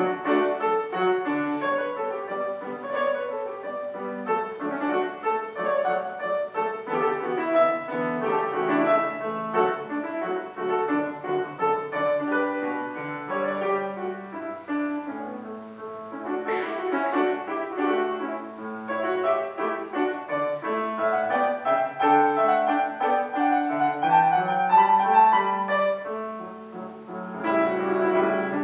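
Piano playing classical concerto music in a busy, continuous run of quick notes, with one sharp accent partway through.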